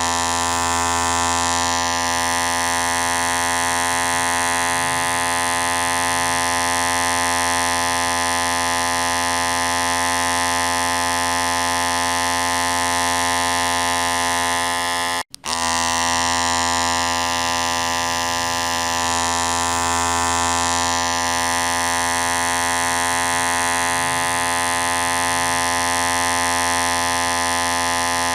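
Electric hair clipper running with a steady buzz. It cuts out for an instant about halfway through, then carries on unchanged.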